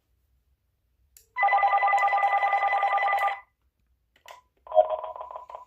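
Uniden TRU9488 cordless phone ringing with an electronic warbling ring: one ring of about two seconds starting a second and a half in, then a click and a shorter, quieter ring near the end.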